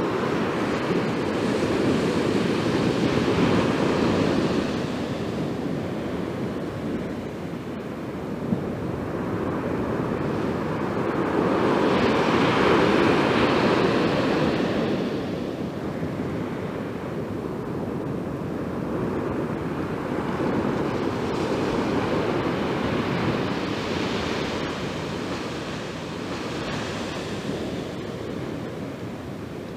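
North Sea waves breaking on a beach: a steady surf that swells and fades in slow surges about every ten seconds, the loudest a little before halfway.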